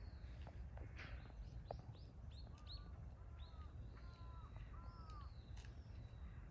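Birds calling: a run of quick high chirps in the first half, then four short arched calls in a row, over a low steady rumble.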